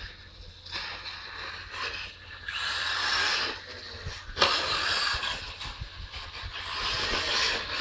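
Radio-controlled off-road buggy driving on a dirt track, its noise coming and going in four surges of about a second each as it accelerates, with a sharp, loud start to the third surge about halfway through.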